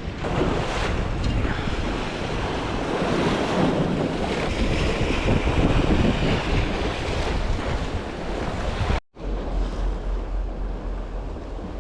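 Strong wind buffeting the microphone, with waves washing at the water's edge. The sound drops out for a split second about nine seconds in, then the wind rumble resumes.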